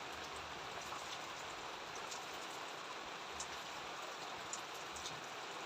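Steady rain falling, an even hiss with a few faint separate drop ticks scattered through it.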